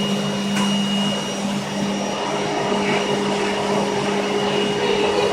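Vacuum cleaner running steadily: a continuous motor hum under an even rush of suction noise.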